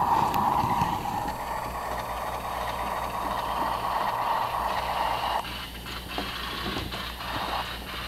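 HO-scale model train running on the layout's track, a steady whirring rumble of its motor and wheels on the rails, being tested over a rail joint where a truck derailed. The whirring stops about five and a half seconds in, with a few clicks, and starts again near the end.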